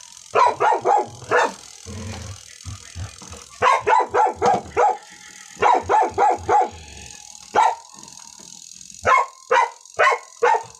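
A dog barking repeatedly, in quick runs of three to five sharp barks with short pauses between the runs.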